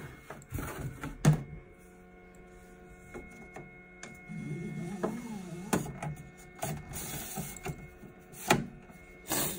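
Flexible removable build plate of a FlashForge Adventurer 3 3D printer being handled and slid back onto the heated bed: scraping, with a few sharp knocks and clicks, the loudest about a second in and near the end, over a faint steady hum.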